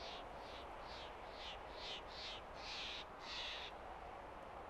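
A bird calling: a quick series of about nine short, scratchy high notes that grow longer and louder, then stop about three-quarters of the way through, over a steady background hiss.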